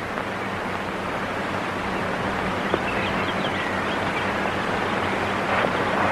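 Steady hiss with a low hum from an old film soundtrack, growing slightly louder, with a few faint high chirps about three seconds in.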